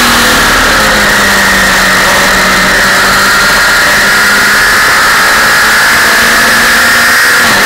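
Sport motorcycle engine running hard at high revs on a race track, its pitch dipping slightly about a second in and then held steady, under loud wind rush on the bike-mounted camera.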